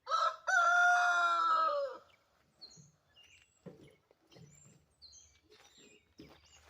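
A rooster crowing once: a short first note, then a long held call that falls in pitch and stops about two seconds in. Faint small-bird chirps follow.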